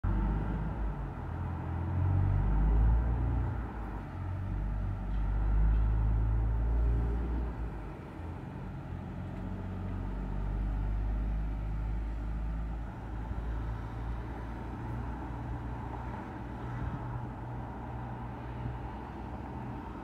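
Wind buffeting the microphone: a low rumble that swells in strong gusts during the first eight seconds, then settles into a weaker, steadier rumble.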